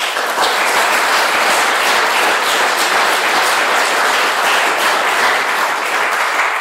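Audience applauding, many hands clapping at once; steady throughout and starting to fade right at the end.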